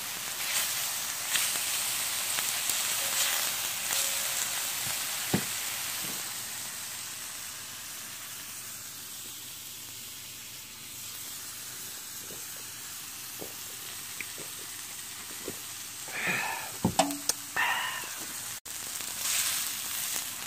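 Pork neck steaks and sausages sizzling on a thick griddle plate, a steady hiss that eases off around the middle, with a few short clicks and clinks near the end.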